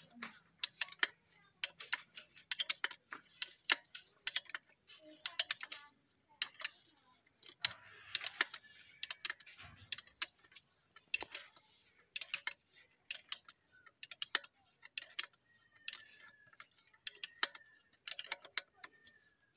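Irregular sharp metallic clicks of a wrench working a bush puller on a motorcycle swingarm pivot while the bush is pressed, over a steady high hiss.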